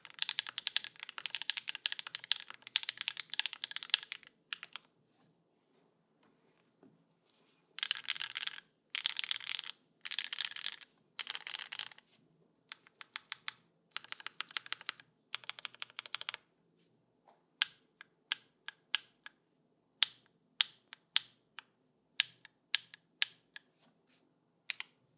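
Mechanical keyboard with stock Gateron Summertime V2 switches on an aluminium plate, with GMK keycaps, being typed on. There are quick runs of typing, first for about four seconds, then in short bursts after a pause; the last third is separate single key presses, one or two a second.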